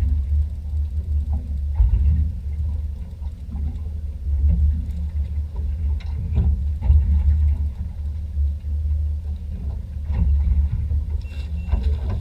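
Charter fishing boat under way: a low, uneven rumble with a few faint knocks.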